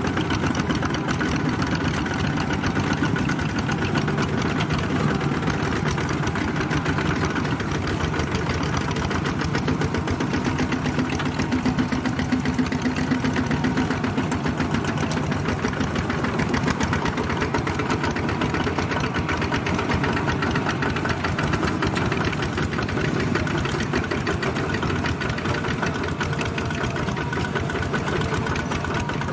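Two-wheel walking tractors' single-cylinder diesel engines running steadily, with a fast, even chugging.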